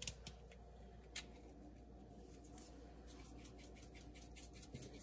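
Hand-twisted pepper mill grinding black pepper: faint, rapid rasping clicks that start about halfway through, after a couple of sharp handling clicks near the start.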